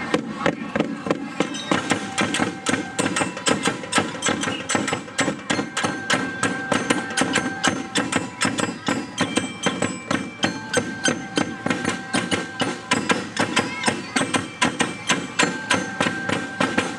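Dance music with a fast, steady percussion beat and held melodic notes over it.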